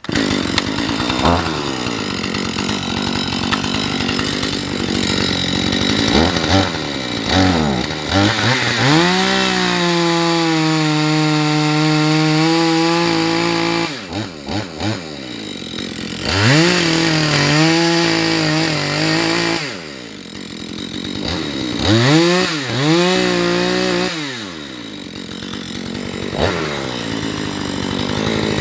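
Husqvarna 435 two-stroke chainsaw cutting into a tree, its engine speed rising to full throttle, holding there for several seconds and dropping back, again and again as the throttle is worked through the cut.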